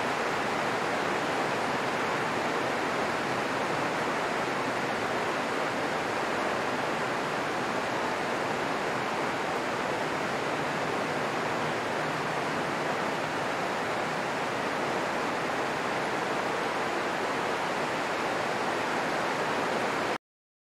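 Steady rain falling on dense foliage, an even hiss with no separate drops or thunder, cutting off abruptly near the end.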